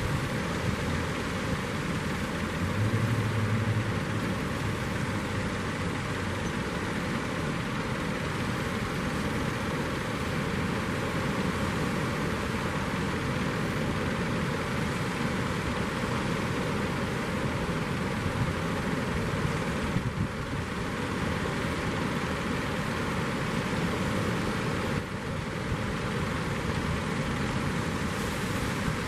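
Steady noise of ocean surf breaking on the beach, with no clear rhythm or tone.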